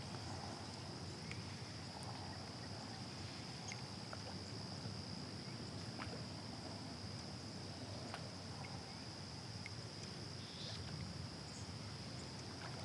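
Steady high-pitched drone of an insect chorus over quiet calm-water ambience, with a few faint light clicks and pops scattered through it.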